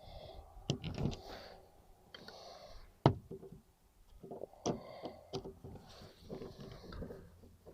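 Interior car door trim parts being handled and fitted: scattered clicks and knocks with short bits of scraping, the sharpest knock about three seconds in.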